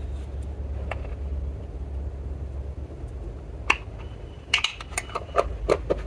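Slime being worked with makeup: a few sharp clicks, then a quick run of sticky pops and clinks in the last second and a half, over a steady low rumble.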